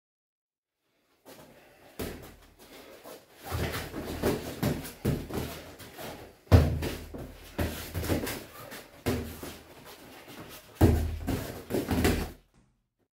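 Boxing gloves thudding as punches land on guards and bodies in heavyweight sparring, an irregular run of knocks and blows. The hardest land about six and a half and eleven seconds in. The sound cuts in just after a second and stops shortly before the end.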